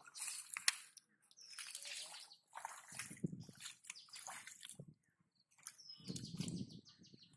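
Hands sloshing and splashing through shallow muddy water in short bursts, with birds chirping.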